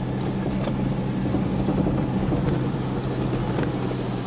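Car engine running at a steady hum while driving on beach sand, heard from inside the cabin, with a few faint clicks and rattles.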